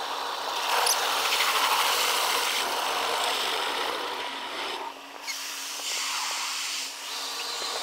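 Automatic car wash working over the car, heard from inside the cabin: a steady rushing, scrubbing wash of water spray and cloth brushes on the windshield and body. It swells about a second in, drops off briefly about five seconds in, then comes back.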